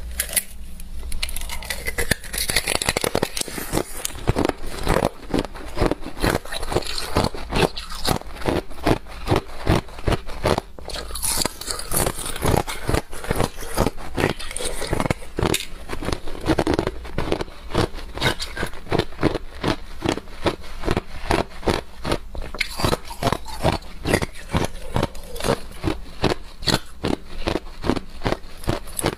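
Clear ice frozen in a plastic water bottle being bitten and crunched, mixed with the crackle of the thin bottle plastic being peeled off the ice. A dense, steady run of sharp cracks and crackles, several a second.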